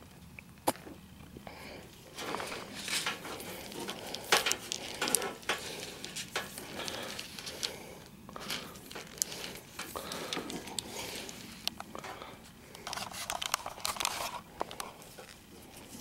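Insulated electrical wires being pushed by hand into the end of a lubricated PVC conduit: irregular rubbing and scraping with short clicks, starting about two seconds in.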